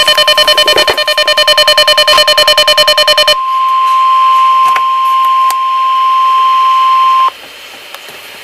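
A weather radio's alarm beeping rapidly, about a dozen beeps a second, laid over the steady NOAA Weather Radio warning alarm tone near 1 kHz. After about three and a half seconds the beeping stops, and the single steady tone runs on alone for about four more seconds before cutting off. Together they signal the start of an emergency alert broadcast.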